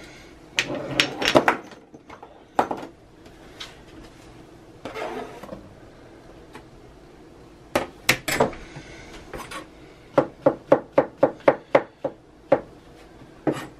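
Chef's knife chopping on a plastic cutting board: scattered knocks while dicing raw bacon, a few louder knocks around the middle as the pieces go into a cast iron skillet, then a quick even run of chops, about four a second, slicing mushrooms.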